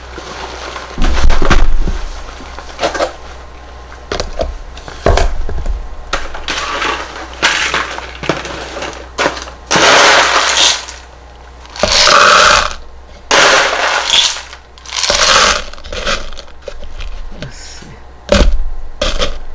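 Expanded clay pebbles (LECA) being poured and scooped into a clear plastic self-watering pot, rattling against the plastic in several short bursts, with scattered clicks and a few dull knocks of containers being handled.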